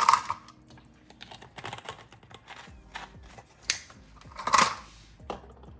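Clicks and knocks of a bottle and measuring spoon being handled in the kitchen, with two short, louder, noisy bursts at the start and about four and a half seconds later.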